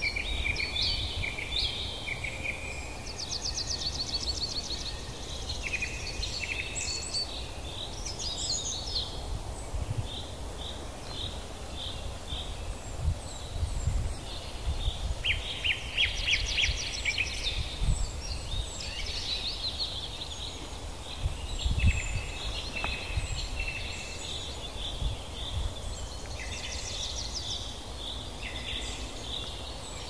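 Several birds calling over one another, with rapid trills and short chirps coming and going, over a steady low rumble with a few low thumps, the loudest about 22 seconds in.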